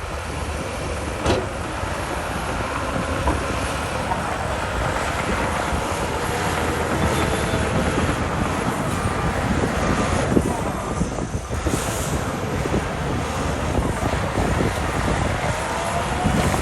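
Diesel engine of a Shantui DH17 bulldozer working hard while it pushes soil, a loud, steady run with occasional short knocks.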